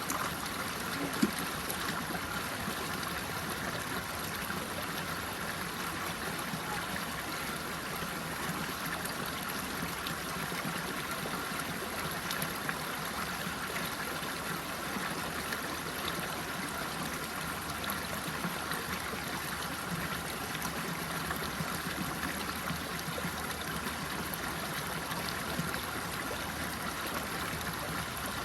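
Running water flowing steadily, with a single brief tick about a second in.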